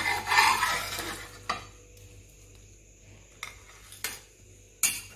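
Metal spatula scraping across a dosa tawa as it slides under the finished pizza dosa, for about a second and a half, followed by a few light clicks.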